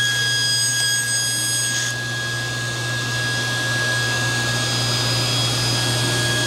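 SawStop table saw running steadily at full speed with a constant tone. A thin strip of solid wood is ripped through the blade in the first couple of seconds, then the blade spins freely.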